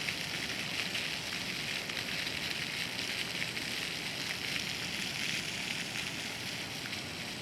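Park water fountain splashing steadily, an even rush of falling water with no breaks.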